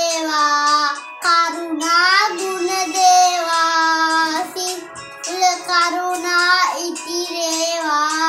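A child singing a Sinhala Buddhist devotional song (bathi gee) in long held notes, in a few phrases with short breaths between them; the singing stops near the end.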